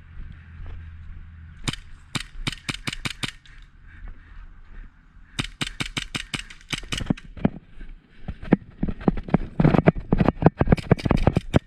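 Airsoft guns firing in three quick strings of sharp shots, about five a second, the last string the loudest.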